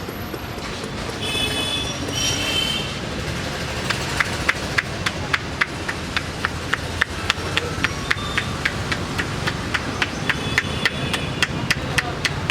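Barber's hands tapping rhythmically on the head during a massage: sharp taps about three to four a second, starting about four seconds in, over steady street background noise.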